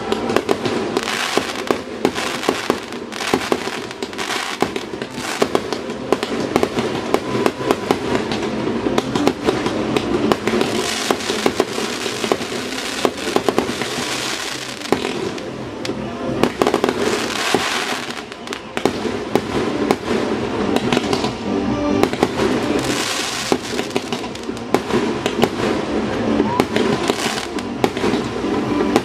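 Fireworks display: a continuous barrage of shells launching and bursting, with sharp bangs and crackle following one another without a break.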